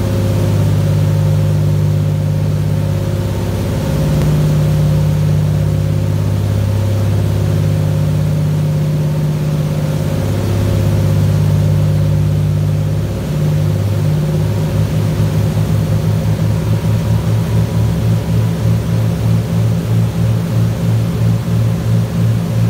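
Twin Cummins QSC 500 marine diesel engines running hard under way, a steady heavy drone over the rush of the wake. About two-thirds of the way through, the drone dips and then starts pulsing about twice a second.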